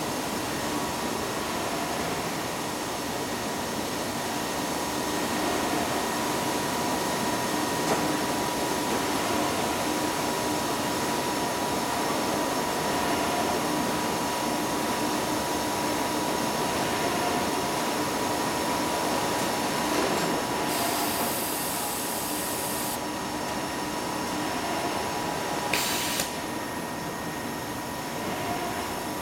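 HP Scitex TJ8300 industrial inkjet press running: steady machine noise with a constant high whine. A short hiss comes about two-thirds of the way through, and a click near the end, after which the noise is slightly quieter.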